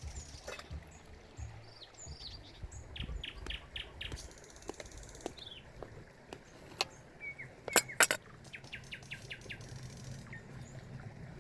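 Small birds chirping and singing in short, repeated calls and quick falling whistles. A few sharp clicks or knocks about eight seconds in are the loudest sounds.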